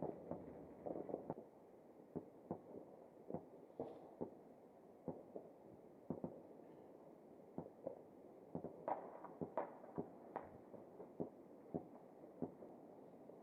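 Distant fireworks and firecrackers going off: many scattered sharp pops, crowded together in the first second, then single pops every half second to a second, with a few louder ones about nine to ten seconds in.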